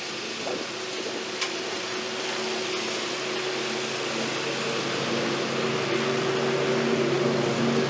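Small petrol engine of lawn equipment running steadily over a rushing hiss, getting gradually louder toward the end as it comes closer.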